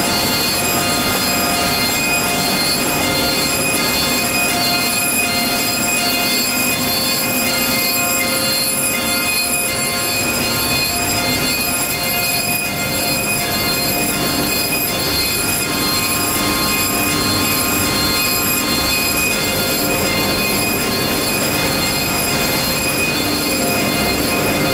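Yoshino bindery line running: steady, loud machine noise with several high, steady whining tones over it.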